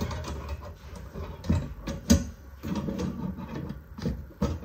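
Metal wire dish rack being assembled by hand: irregular clicks, taps and rattles of the wire parts being fitted together, the sharpest about two seconds in.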